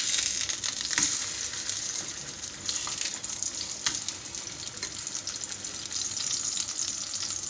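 Chicken patties shallow-frying in oil in a pan, sizzling and crackling steadily, with a few light clicks of a spatula as the patties are turned over.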